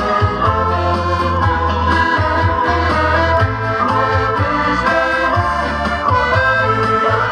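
Piano accordion playing a tune: a reedy melody on the right-hand keyboard over steady bass notes and chords from the left-hand buttons.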